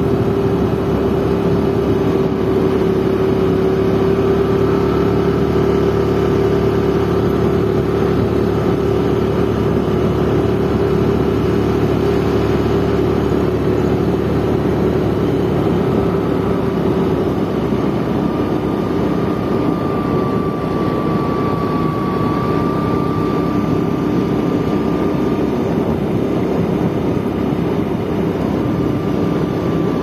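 Two-wheeler engine running steadily at cruising speed, with wind and road noise under it. Its note drops a little about halfway through as the bike eases off.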